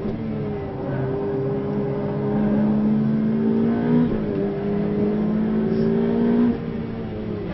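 Ferrari 488 Pista's twin-turbo V8 heard from inside the cabin, accelerating hard with a rising note. The pitch drops sharply about four seconds in as it shifts up, then climbs again before falling and quietening near the end.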